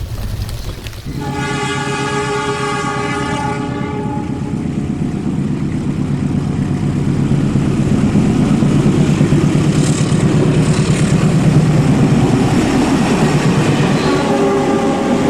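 Train horn sounding for about three seconds, starting suddenly about a second in, followed by the rumble of a moving train with wheels clicking over the rails, growing louder; a fainter horn note comes back near the end.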